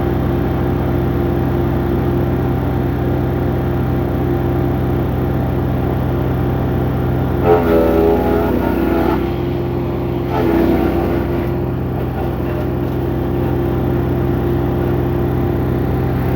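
Wood chipper running steadily with a constant engine drone. Twice, about eight and ten and a half seconds in, the sound briefly shifts in pitch and gets louder.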